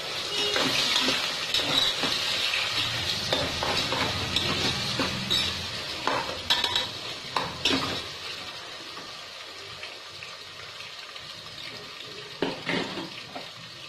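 Sliced onions sizzling as they fry in a metal pressure-cooker pot while a spoon stirs them. Sharp clinks of the spoon against the pot come around six to eight seconds in and again near the end. The sizzle is louder at first and settles lower in the second half.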